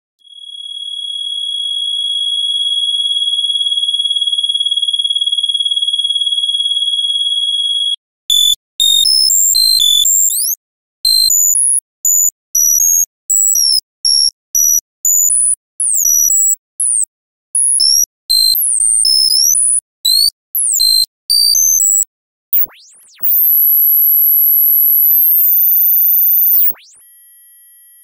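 Synthesized sci-fi scanning sound effects. First a steady high electronic tone fades in and holds for about eight seconds. Then comes a long stop-start run of short beeps that jump between pitches with quick upward chirps, and near the end swooping glides and a steady, very high whine that steps in pitch.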